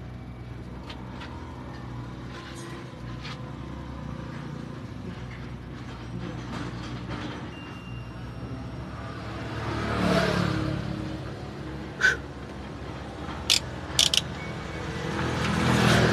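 A motor vehicle engine runs steadily at a low hum, swelling up and fading twice as if vehicles pass, with three short, sharp sounds in the second half.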